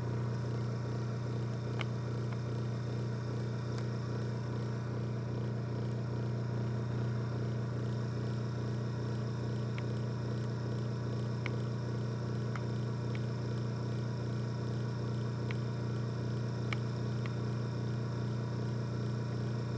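Small electric motor driving a pillow block bearing, running with a steady hum; a few faint ticks sound over it.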